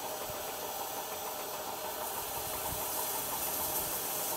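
Standing USATC S160 2-8-0 steam locomotive hissing steadily as it simmers before departure, with heavy rain falling.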